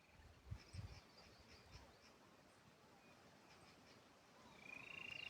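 Near silence: faint outdoor ambience with a few soft low thumps in the first second and faint high chirps, then a steady high-pitched trill that starts near the end.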